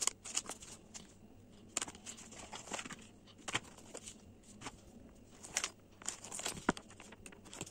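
Plastic-wrapped stationery packs and a clear plastic zippered bag crinkling and rustling as they are handled, in scattered short crackles.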